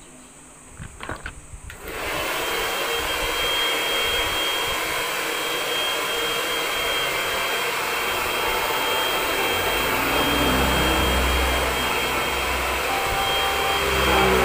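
Handheld hair dryer switched on about two seconds in and running steadily, a loud rush of air with a thin high whine. A deeper rumble joins for a few seconds near the end.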